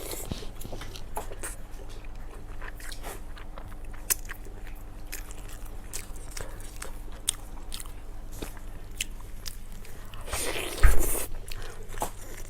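Close-miked eating: chewing and biting with many small wet clicks. About eleven seconds in comes one louder bite with a low thump.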